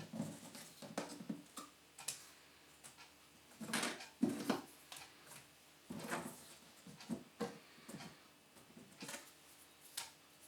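Light handling noises: irregular clicks, knocks and short scrapes of small objects being picked up and set down. The busiest clusters come about four and six seconds in.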